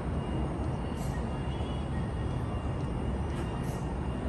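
Steady low outdoor rumble of distant city noise, even throughout, with a faint thin high tone held steady above it.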